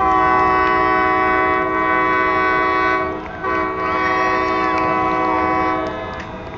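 Horns sounding together in a loud chord of several pitches: two long blasts, the second starting about half a second after the first breaks off about three seconds in.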